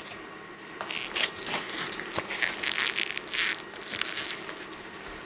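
Plastic vacuum-sealer bags crinkling and crackling in irregular bursts as bagged corn cobs are handled.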